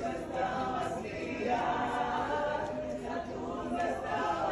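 A group of voices singing together without accompaniment, heard from a distance, holding long notes.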